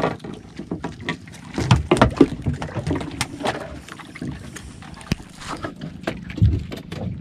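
Irregular knocks, clicks and scrapes against a small wooden-and-fibreglass outrigger boat as a hand-lined hairtail (ribbonfish) is hauled aboard and handled. Underneath is a steady wash of water and wind.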